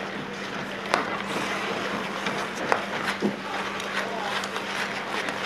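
Outdoor bandy match sound: skates scraping on the ice, a couple of sharp clicks of bandy sticks hitting the ball, and short distant shouts from players, over a steady low hum.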